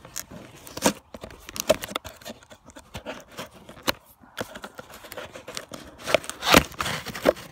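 Fishing reel packaging being torn open and handled by hand: irregular rustling, tearing and scraping with scattered clicks, loudest about six and a half seconds in.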